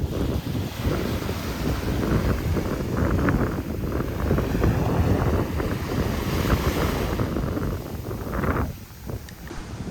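Wind buffeting the microphone over the sound of the sea. The wind drops away briefly near the end.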